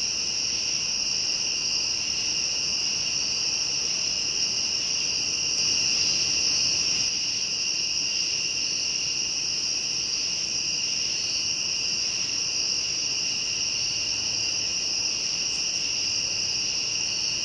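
Late-summer night insect chorus, crickets among them: a steady, unbroken high trilling at two pitches, one above the other, swelling slightly about six seconds in.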